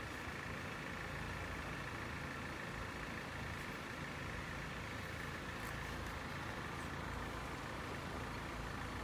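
Steady low running of an idling engine, with faint outdoor background noise.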